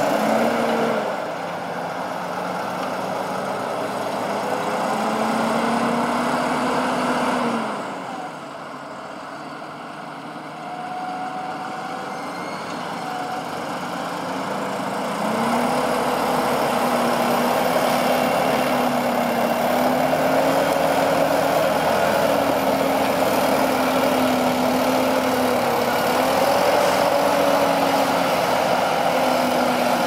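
Fendt 936 Vario tractor's six-cylinder diesel engine running under load while pulling an eight-furrow reversible plough through the soil. The engine note holds steady, drops in level about eight seconds in and grows louder again from about fifteen seconds.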